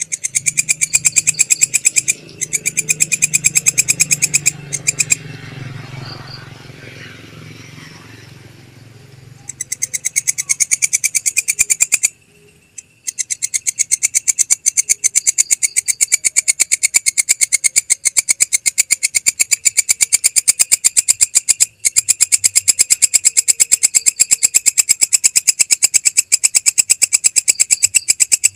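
Belalang kecek katydid calling: long trains of rapid, sharp, high-pitched ticking pulses. The calling breaks briefly about two seconds in, drops to a lull from about five to nine seconds, stops again near twelve seconds, then runs on steadily.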